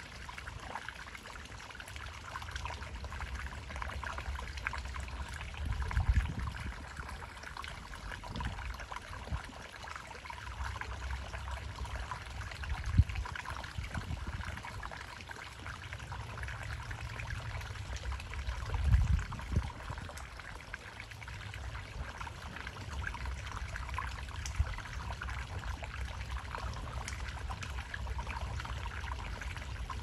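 A small stream trickling and running steadily. Low gusts of wind hit the microphone a few times.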